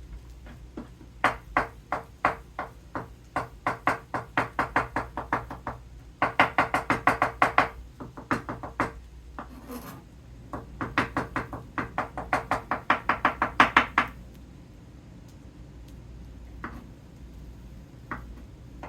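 Kitchen knife chopping sliced Kalamata olives on a cutting board: runs of quick, sharp knocks, the fastest at about seven or eight strokes a second, with short pauses between runs. The chopping stops a few seconds before the end.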